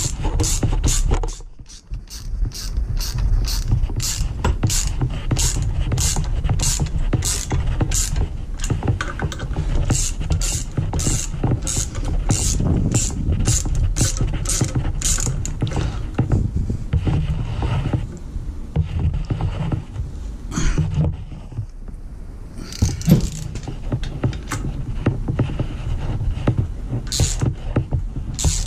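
Ratchet with a long extension clicking steadily, about two clicks a second, as a bolt is run into a Jeep 4.0 inline-six block through a motor mount bracket. After about fifteen seconds the clicking gives way to a few scattered clicks, over a steady low rumble.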